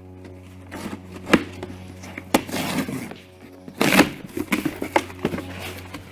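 A cardboard shipping box being handled and opened by hand: sharp cracks and knocks, with noisy rustling and tearing swells, the loudest about a second in and near the middle. Steady background music runs underneath.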